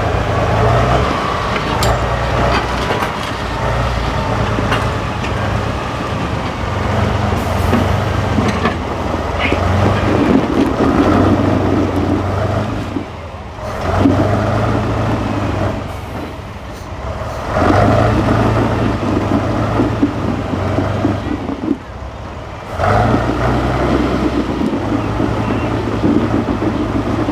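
Heavy diesel engine of an 8x8 off-road trial truck working under load, revving up and easing off again and again, with a few short drops where the throttle is lifted.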